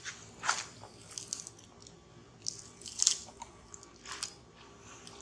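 A macaque biting and chewing at a plastic-wrapped snack: short, irregular crackling crunches of the wrapper and food, the loudest about three seconds in.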